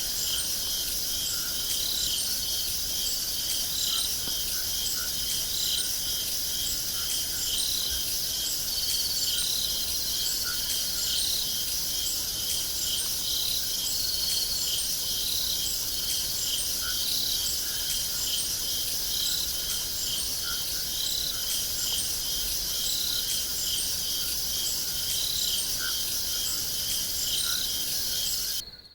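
Crickets chirping steadily, several insects calling over one another in short repeated pulses above a constant high insect hum; the sound fades out at the very end.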